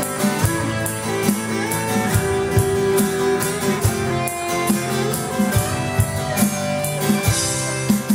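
A live rock band playing the instrumental intro of a slow ballad: guitars over a drum kit keeping a steady beat of about two strokes a second.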